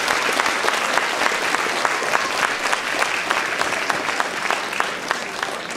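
Audience applauding, a dense mass of clapping that thins and fades near the end.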